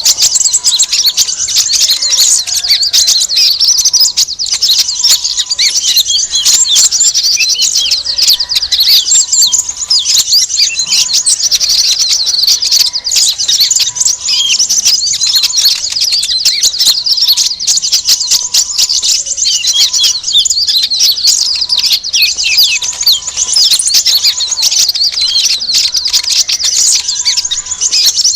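Bird-lure recording of a noisy flock of small birds: many high-pitched chirps and twitters overlapping in a dense, unbroken chorus, played to draw konin (kolibri ninja) and other small birds in.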